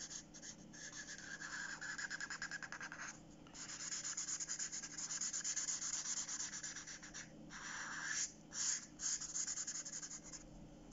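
Broad tip of a marker pen scrubbing rapidly back and forth across paper, colouring in, with a few brief pauses between runs of strokes.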